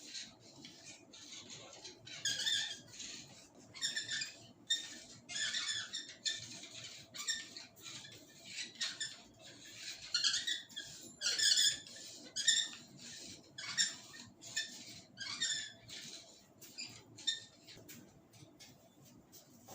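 Hands rubbing and working through oiled hair and scalp during a head massage: a run of short, scratchy rubbing strokes, one or two a second, uneven in strength.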